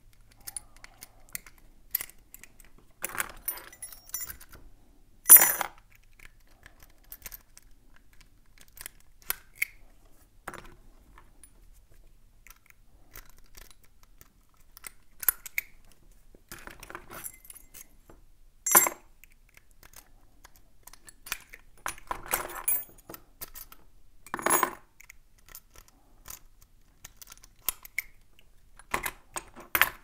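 Metal clicks and clinks as steel puck locks are opened one after another with a comb pick, handled and set down among the other locks. Scattered small clicks run throughout, with a few louder clinks, the loudest about five seconds in.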